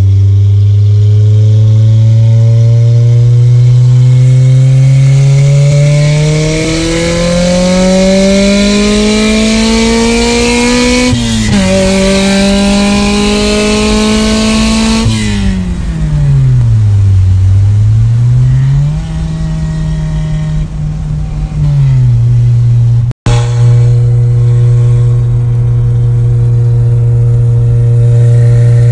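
K-swapped Honda Civic's K-series four-cylinder engine under acceleration, its revs climbing steadily and dropping at a gear change about eleven seconds in. The revs then fall and rise again, and after a brief break near the end the engine runs at a steady pitch.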